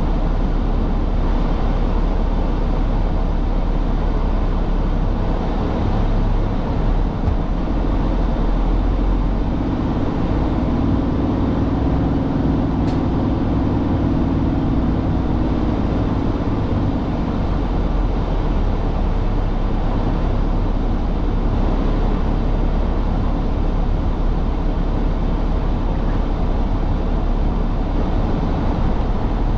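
Truck engine and road noise as a steady low rumble, with a deeper hum that swells and then fades away in the middle.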